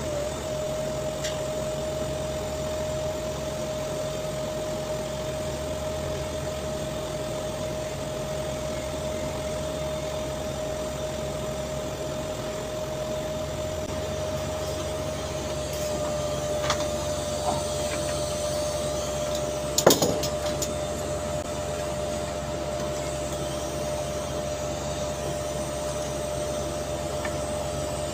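TIG welding arc running steadily on a 3-inch stainless steel pipe joint during the root pass, a constant-pitched hum over a low drone of site machinery. A single sharp knock about twenty seconds in.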